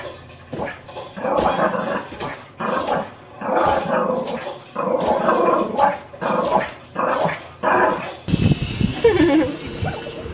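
A dog vocalizing in a run of short bursts, roughly one a second. About eight seconds in, the clip cuts to a different sound: a steady hiss with a few gliding squeaks.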